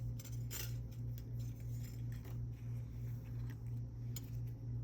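Quiet small clicks and scrapes of thin jewelry wire being wrapped around a wire frame and beads, over a steady low hum.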